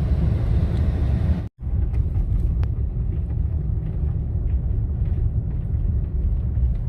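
Steady low rumble of a Toyota Tacoma pickup driving on all-terrain tyres along a snow-covered road. The sound drops out for a split second about one and a half seconds in.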